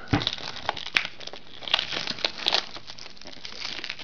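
Plastic shrink-wrap crinkling and crackling as it is picked at and torn off a boxed Blu-ray set by hand, in irregular bursts that are busiest in the first two and a half seconds.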